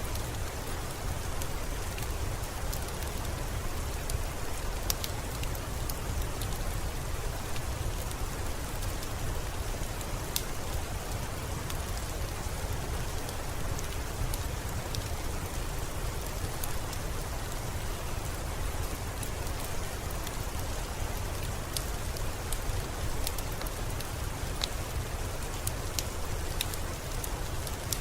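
Steady rain mixed with a crackling wood fire: an even hiss with a low rumble underneath, and many sharp little crackles scattered throughout.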